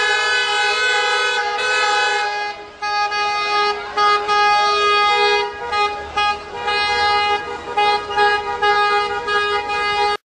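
Celebratory car horns honking from several passing cars. Horns of different pitch overlap in long and short blasts that keep starting and stopping.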